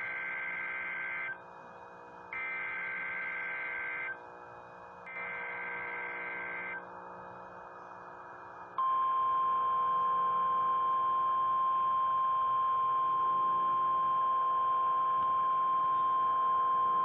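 NOAA Weather Radio Emergency Alert System tones: three screechy bursts of SAME digital header data, the first already under way, about a second apart, over a faint radio hum. About nine seconds in, the steady 1050 Hz warning alarm tone starts and holds. Together they mark the start of an alert broadcast, here a tornado watch.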